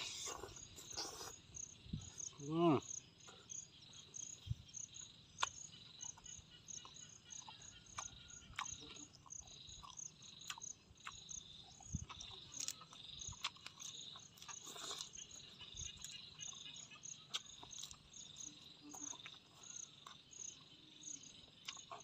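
Insects chirping in a steady rapid high pulse, with close-up chewing and lip-smacking clicks from a man eating boiled pork by hand. A short hum from the eater about three seconds in is the loudest moment.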